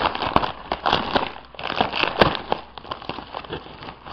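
Plastic mailer bag crinkling and crackling in irregular bursts as hands rummage inside it.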